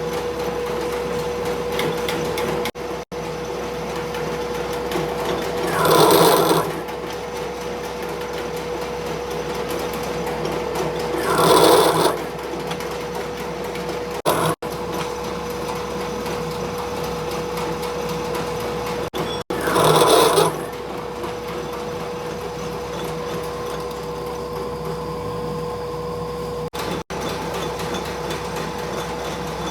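A workshop machine runs with a steady hum, interrupted three times by a short, louder rush of noise, about six, twelve and twenty seconds in.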